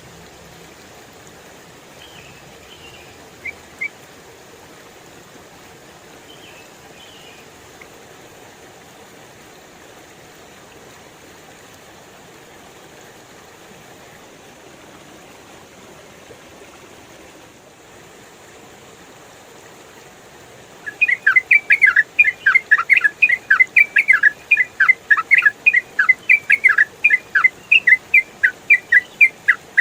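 Yellow-vented bulbul (trucukan) singing: a couple of faint short calls early, then from about two-thirds of the way in a loud, rapid run of sharp chattering notes, four or five a second, in the fast continuous 'ropel' style. A steady background hiss runs underneath.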